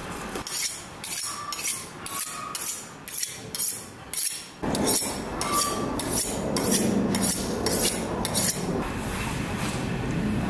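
Repeated strokes of a metal kitchen utensil, about two a second, which stop near the end. A steady low rumble sets in about halfway through.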